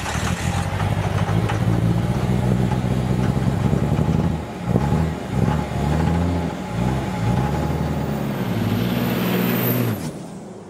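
A vehicle engine running and revving, its pitch rising and dropping in steps, then fading out near the end.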